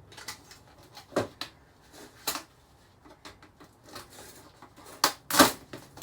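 Scattered clicks and knocks of plastic and metal TV parts being handled and pried apart during dismantling, with the loudest clatter a little after five seconds in.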